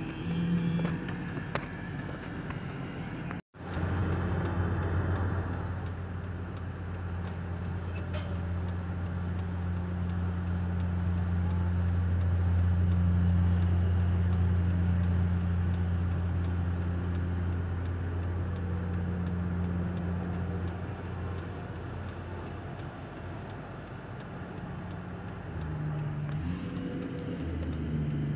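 An engine running steadily at a low, even pitch, with faint ticking over it.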